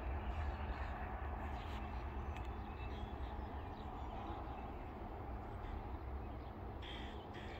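Low rumble of a freight oil train fading away as it recedes down the line.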